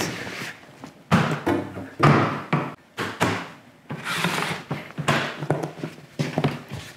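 A heavily loaded SKB iSeries hard plastic rolling case is set down on the floor, with two sharp thuds about one and two seconds in, followed by knocks and clatter as its telescoping handle is pulled out and the case is handled.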